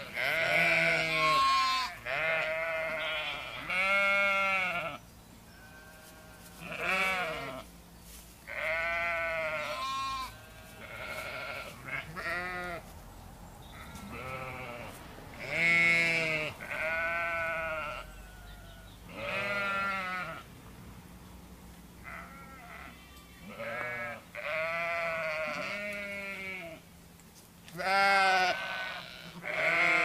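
Sheep bleating over and over: a long series of separate calls, each about a second long, varying in pitch, with short gaps between them.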